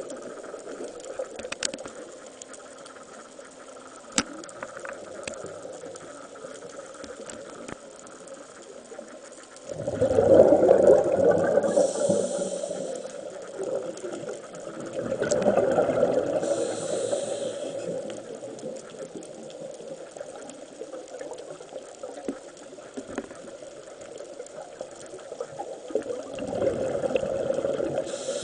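Scuba diver breathing through a regulator underwater: three long gurgling rushes of exhaled bubbles, about ten, fifteen and twenty-six seconds in, two of them with a short hiss of the regulator. Between breaths there is a low steady underwater hiss with scattered faint clicks.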